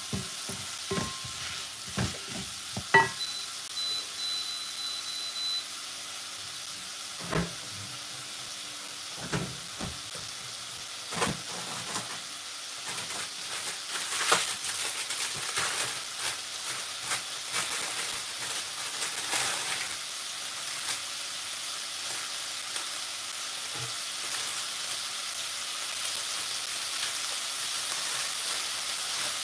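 Chopped onions and sweet peppers sizzling in an aluminium pot, with a wooden spoon knocking against the pot a few times in the first dozen seconds as they are stirred. After that there is a steady frying hiss that grows a little louder.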